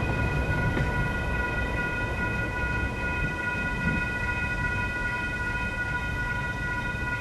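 Railroad crossing electronic bells (WCH Gen 2 Type 1.5) ringing steadily, a stack of clear tones, with the crossing still active after the train has cleared; they ring until the gates rise. A low rumble underneath eases slightly.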